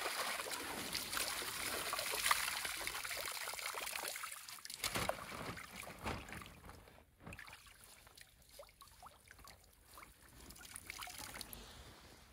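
Water pouring and splashing, heaviest over the first four seconds, then thinning to scattered small splashes and drips: the catch of small river fish being let go back into the water.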